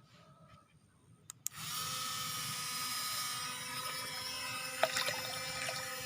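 Small electric motor of a homemade remote-control boat starting up about a second and a half in, then running steadily with a high whine while its propeller churns water.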